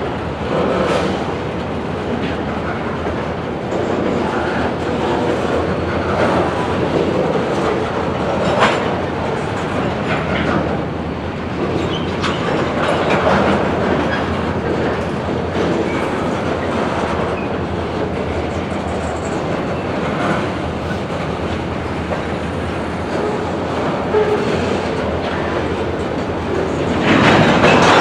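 Freight cars rolling by, their wheels clacking over rail joints, with scattered metallic clanks and a louder run of clanks near the end.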